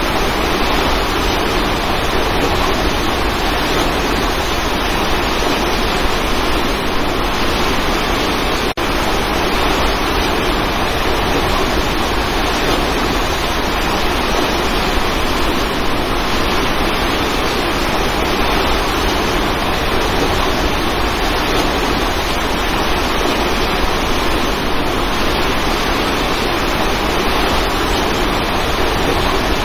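Waterfall: a steady, loud rush of falling water, with one brief dropout about nine seconds in.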